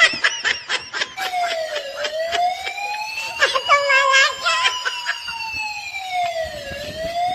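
Police siren wailing, its pitch slowly rising and falling over several seconds. Short bursts of voices and laughter break in near the start and about halfway through.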